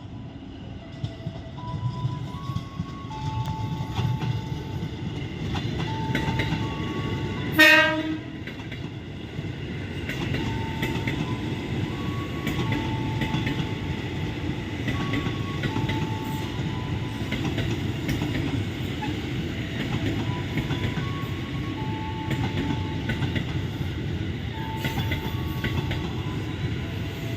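A train's horn sounds one short, loud blast about eight seconds in, then a train runs through with a steady rumble. A repeating electronic chime of short notes at changing pitches plays throughout.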